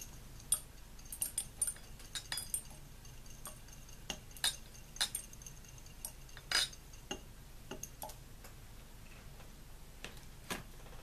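Small metal relay contacts dropped from a glass dish into a glass flask, landing with sharp clinks on the glass, about twenty at irregular intervals, some with a short glassy ring.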